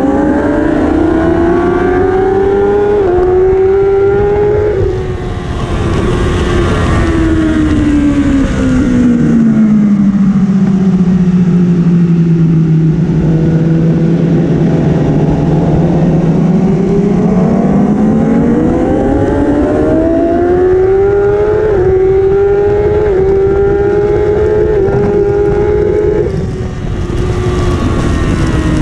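Kawasaki inline-four superbike engine at race pace, heard onboard: it revs up through quick upshifts, falls away as the rider brakes and downshifts, holds a low note through a slow corner for several seconds, then climbs again through a string of upshifts before backing off near the end. Steady wind rush on the microphone underneath.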